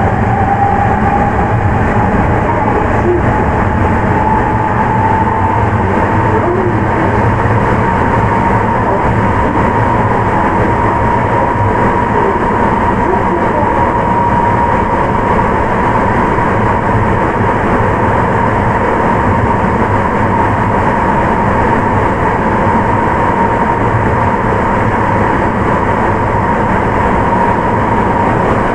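Onboard running sound of a Sapporo Municipal Subway 9000 series rubber-tyred train with a Hitachi IGBT VVVF inverter, heard inside the car in the tunnel. A steady loud rumble carries a thin whine that rises slightly in pitch over the first several seconds and then holds steady.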